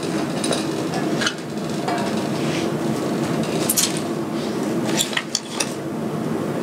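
Steady room hum with a few sharp knocks and clinks from baking utensils on a stainless-steel worktable: a metal mixing bowl of flour and a wooden rolling pin being handled while pie dough is worked. The clicks are scattered, with a small cluster about five seconds in.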